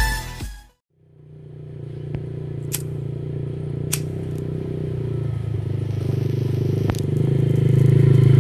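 Music cuts off, then an ATV's engine runs at a steady pitch as the quad drives closer on a dirt track, growing gradually louder. Three sharp clicks sound along the way.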